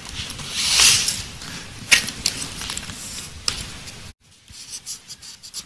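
Scratching the coating off a Triss scratch-off lottery ticket: uneven scraping and rubbing strokes with a few sharp clicks. The sound cuts out for a moment near the end.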